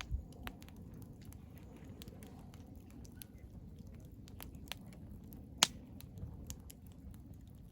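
Wood fire crackling, with frequent small snaps over a low steady rumble and one sharp, loud pop about five and a half seconds in.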